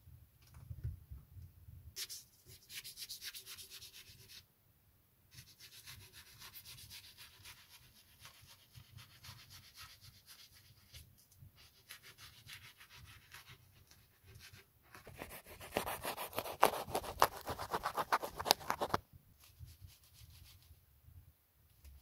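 A knife blade scraping and cutting along wood in quick repeated strokes, coming in spells, with the hardest and loudest scraping a few seconds before the end.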